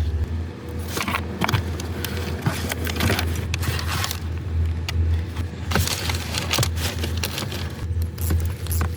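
A car running with a steady low hum, with scattered clicks and rustles over it.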